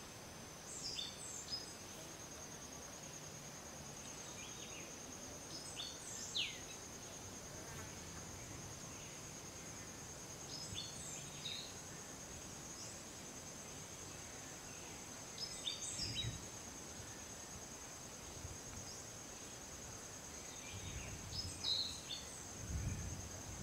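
Tropical forest ambience: a steady, high-pitched insect trill runs throughout. Short bird chirps come every few seconds, a few of them sliding downward. Some low rumbles come near the end.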